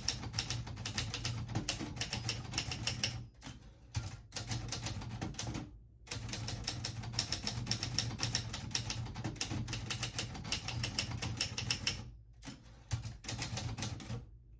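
Typewriter being typed on quickly, keystrokes clattering in rapid succession, with two short pauses a few seconds in and again near the end.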